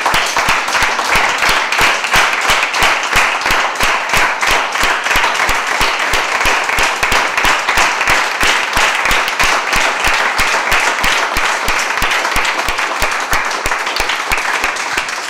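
Audience applauding steadily, many hands clapping in a room, with one clapper close by standing out in an even beat; the applause tapers off near the end.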